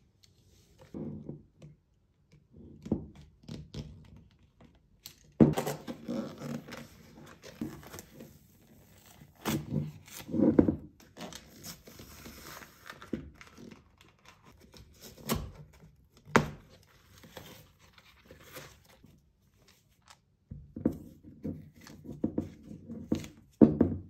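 Old leather cover being cut with a utility knife and torn and peeled off a BMW M3 E46 steering wheel rim: irregular ripping and scraping, densest in the first half, with several sharp knocks as the wheel and pieces shift on the table.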